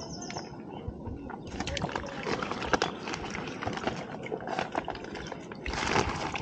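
Irregular rustling and clicking of a fishing net being handled as tilapia are freed from it, louder near the end.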